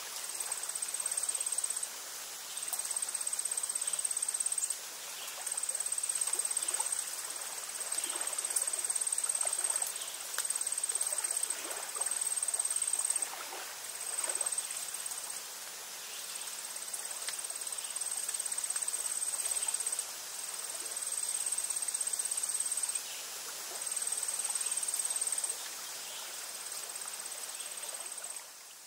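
Insect trilling: a high, steady trill that runs in stretches of one to three seconds with short breaks between them.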